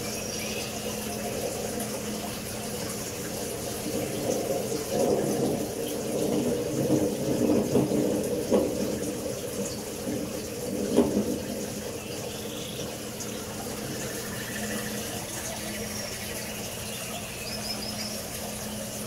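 Steady rush like running water, with a low steady hum beneath it. The middle of the stretch is louder and uneven, and a single sharp knock comes about eleven seconds in.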